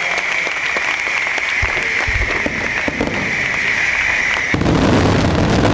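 Fireworks display at full intensity: rapid crackling and bangs over a steady high hiss, with heavier low booms taking over about four and a half seconds in.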